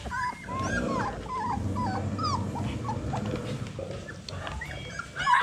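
Young Phu Quoc puppies, about 20 days old, whimpering: a rapid string of short, high, arching cries that thin out after about two and a half seconds, over a low rough rustle.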